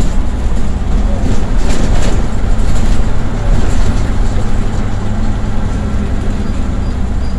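Diesel engine of a Leyland Titan PD3 double-decker bus running steadily while the bus is under way, heard from inside the lower deck as a loud, deep drone with road noise.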